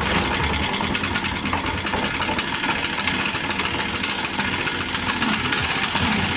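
Stihl BR 600 backpack blower's 4-MIX engine running steadily, a dense fast patter of firing strokes. Small knocks sound from inside the engine, which the mechanic thinks may be a problem with the timing gear.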